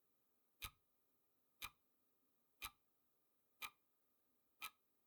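Clock-style ticking sound effect of a countdown timer, one short sharp tick each second, five ticks in all. These are the last seconds of the countdown.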